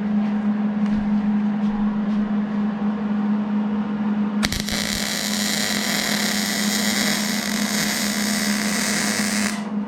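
Wire-feed (MIG) welder arc crackling steadily for about five seconds, starting suddenly about halfway in and cutting off sharply near the end as one weld is laid. A steady low hum runs underneath throughout.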